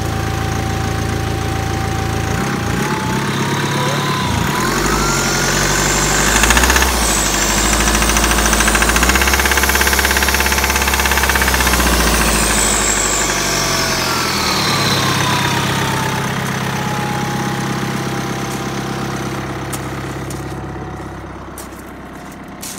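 BMW 520d's four-cylinder diesel engine running cold with a knock. It revs up over a few seconds with a rising whine, holds, then drops back to idle.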